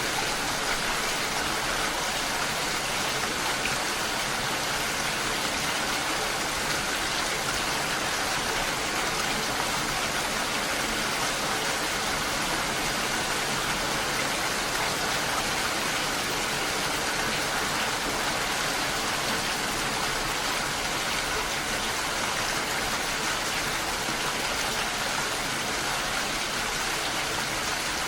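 Steady rain falling, a dense, even hiss without letup.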